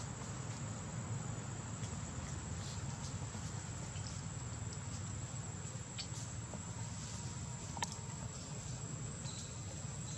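Steady outdoor ambience: a constant high-pitched insect drone over a low rumble, with a few faint short clicks.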